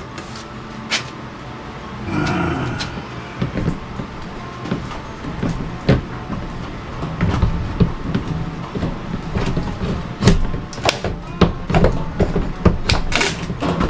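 Hand work at a wooden and plywood wall: a series of sharp knocks, taps and clatters, sparse at first, then coming quicker and louder in the second half, over a faint low hum.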